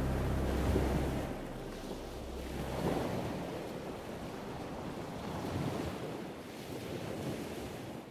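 Ocean surf: waves washing in, the rush swelling and easing every couple of seconds. A music track's last notes fade out in the first second or so.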